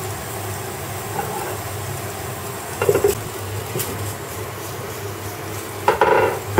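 Pork and onions sizzling steadily in a frying pan over a gas burner. The glass pan lid clatters briefly about three seconds in and again near the end.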